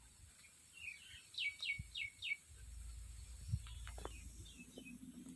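A bird calling: a quick run of four high chirps, each dropping in pitch, about three a second, then a few fainter chirps, over a low rumble.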